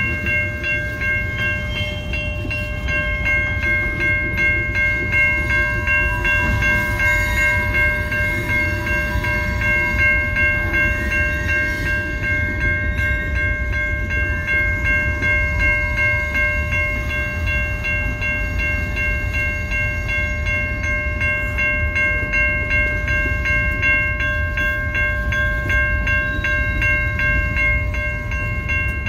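Railroad crossing bell ringing steadily at an activated level crossing, over the low rumble of CN open-top freight cars rolling across the tracks.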